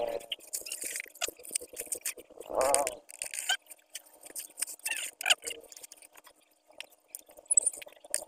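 Scattered clicks, taps and plastic rustles of small goods and packets being handled at a store counter, with a couple of brief vocal sounds, the loudest about two and a half seconds in.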